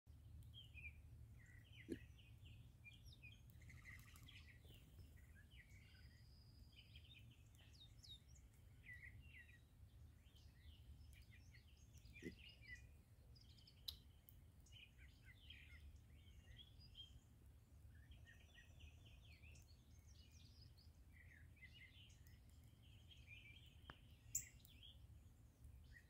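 A small flock of blackbirds calling faintly, with many short chattering chips and squeaks that overlap, over a steady low rumble and a few sharp clicks.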